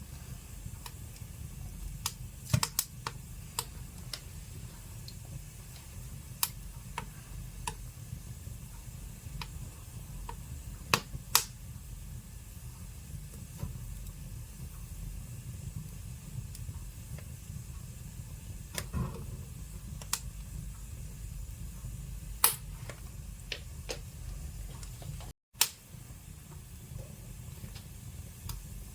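Wood fire burning in a fireplace: a steady low rumble with irregular crackles and sharp pops, a few of them much louder. The sound cuts out for a moment near the end.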